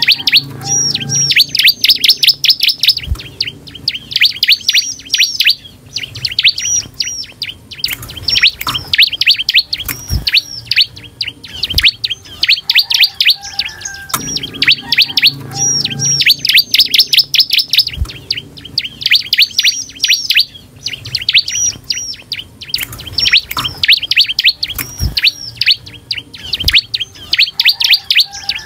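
Bar-winged prinia (ciblek) singing at full pace: phrases of rapid, repeated high chirps, each run lasting a few seconds, separated by short pauses. A few soft knocks are heard now and then between the phrases.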